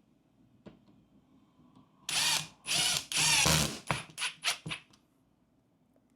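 Power drill driving a sheetrock screw through drywall into a wooden backing strip: three longer runs, then four short trigger bursts as the screw head is sunk just below the surface.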